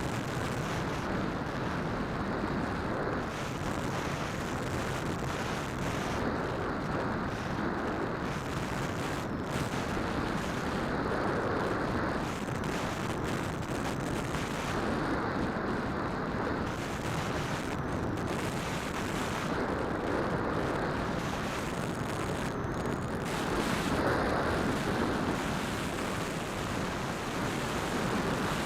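Phantom quadcopter in flight, heard through its onboard keychain camera: a steady noise of propellers and wind over the small microphone, swelling and easing slightly.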